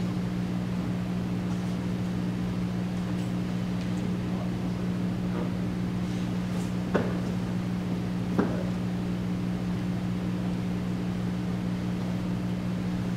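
Steady low room hum, with two short knocks about seven and eight and a half seconds in.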